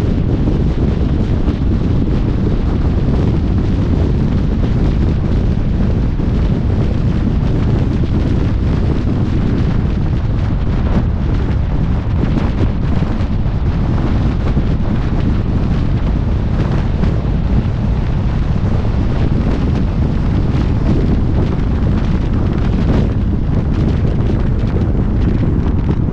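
Loud, steady wind buffeting on the microphone over a low rumble, running without a break.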